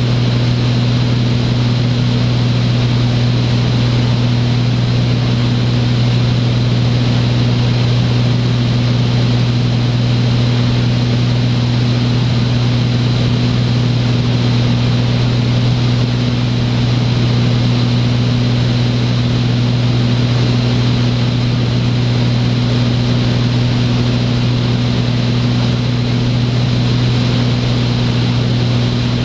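Beechcraft Bonanza A36's piston engine and propeller droning steadily in flight, a low, unchanging hum over a rushing hiss of air.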